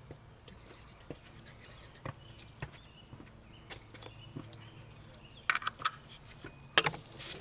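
Metal hand tools and parts clinking and knocking under the car while the oil filter is being taken off. There are scattered light clicks, then a louder clatter about five and a half seconds in and again near the end.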